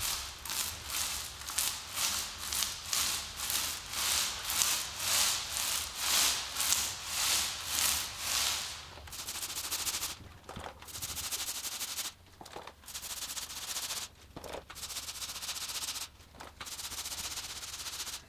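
Paint roller on an extension pole rolling wet epoxy floor paint across bare concrete: back-and-forth strokes, about two a second, for the first half. After that the rolling goes on more quietly, broken by a few short breaks.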